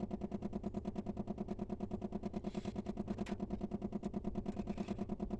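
An engine or motor running steadily with a fast, even pulse of about ten beats a second.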